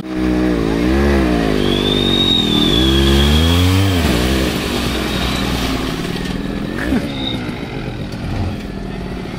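An offroad vehicle's engine revving up and down several times over the first four seconds, then running lower and more steadily, with one short rise about seven seconds in.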